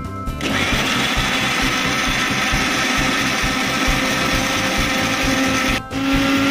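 Electric mixer-grinder motor running with a steel jar of garlic and ginger, grinding them into paste. It starts about half a second in, stops for a moment near the end, then starts again.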